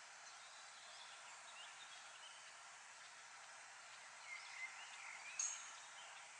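Faint outdoor ambience: a steady hiss with distant birds chirping, the calls clustering about four seconds in, with one brief, sharper high chirp a little later.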